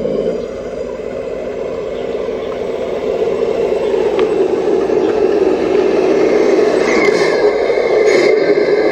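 A machine runs with a steady whir that grows a little louder after a few seconds. From about seven seconds in, a higher tone joins it, along with some scraping and clattering.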